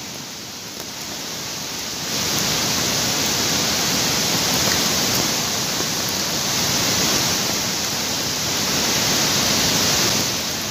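A swollen river in flood rushing past, mixed with falling rain: a steady noise that grows louder about two seconds in.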